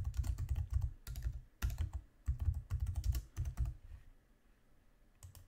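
Typing on a computer keyboard: a quick run of keystrokes that stops about two-thirds of the way through.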